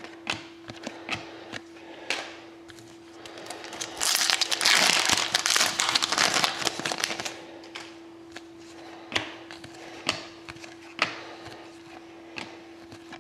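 Foil wrapper of a hockey card pack torn open and crinkled for about three seconds, the loudest sound. Sharp clicks of trading cards being handled and flipped one by one come before and after it. A faint steady hum runs underneath.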